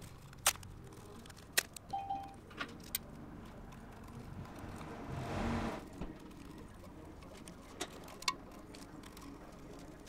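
Green painter's tape being handled and pressed onto a cast intake manifold: scattered small clicks and crinkles, with a longer rustle of tape about halfway through.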